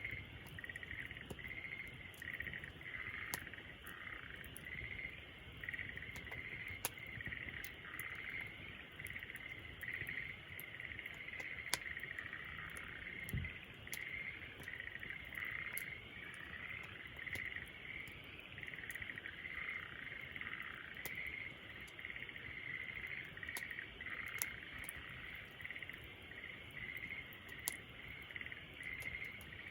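Wood fire crackling with scattered sharp pops, over a steady, pulsing chorus of calling animals.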